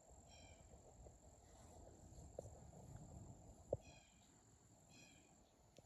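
Faint insects calling: a steady high-pitched trill, with short chirps coming in pairs about a second apart near the start and again near the end. There is a faint click a little before four seconds in.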